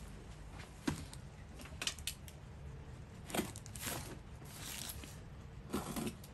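A small cardboard parcel being cut open with a knife: a couple of sharp knocks, then several rasping scrapes and tears as the packing tape and cardboard are sliced and pulled apart.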